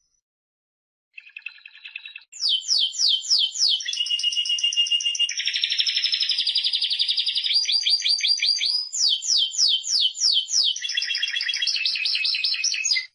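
Timbrado Español song canary singing: a short soft trill about a second in, then a long unbroken song of quick falling sweeps, fast rolls and trills that stops abruptly near the end.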